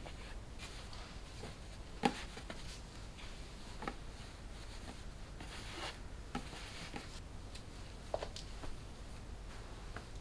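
Folded clothes being handled and laid down, soft fabric rustling and brushing in short scattered bursts, with a few light knocks, the sharpest about two seconds in.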